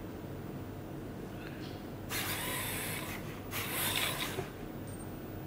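ClicBot modular robot's joint motors whirring as its arm moves, in two spells starting about two and three and a half seconds in, the second one louder.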